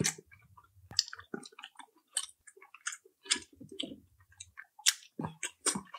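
A person chewing food close to the microphone: irregular short wet smacks and clicks of the mouth, with a few soft low thuds.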